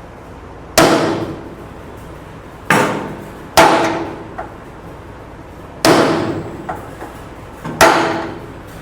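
Hammer striking steel on a suspension bolt hole: five loud, ringing metal blows one to two seconds apart, with a few lighter taps between them. The blows knock back a jagged, pushed-in edge on the hole so the bolt will slide through.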